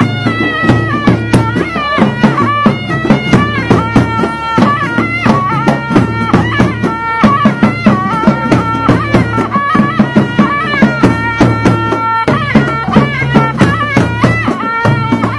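Background music: a melody of held, stepped notes over steady drumming.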